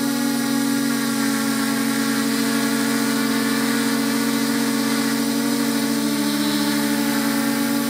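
Multirotor drone's electric motors and propellers running steadily as heard from the onboard camera, a constant hum with a slight shift in pitch about six seconds in.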